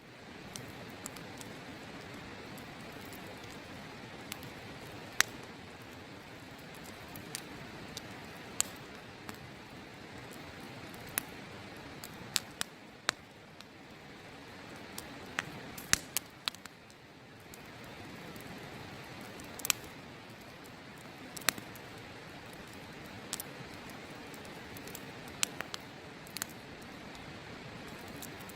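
Open wood campfire crackling, with sharp snaps and pops at irregular intervals every second or two over a steady rushing background.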